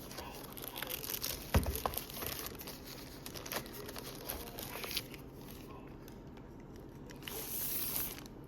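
Packaging being handled as a tablet is unboxed: plastic and paper crinkling and rustling with scattered small clicks, and a single knock about a second and a half in. Near the end comes a brief sliding hiss.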